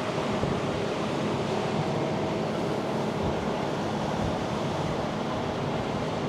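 A motorboat under way: steady engine, water rush and wind on the microphone blended into one even noise, with a faint steady hum in it.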